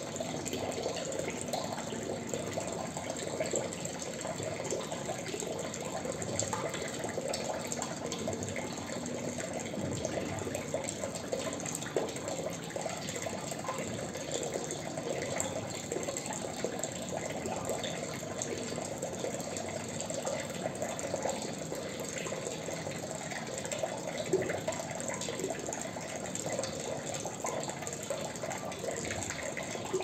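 Water dripping and trickling into water: a dense, steady run of many small drops and splashes with no pauses.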